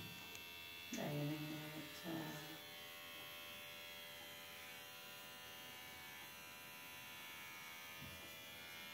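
Electric hair clipper running with a steady buzz as it shaves a baby's head.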